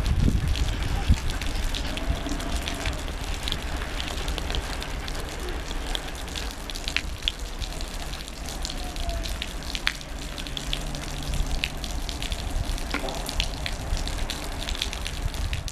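Freight train of open wagons rolling slowly away, its wheels clicking and ticking over the rail joints and switches. The clicks sit over a steady rushing noise that is loudest in the first second, as the last wagons pass, and eases a little as the train recedes.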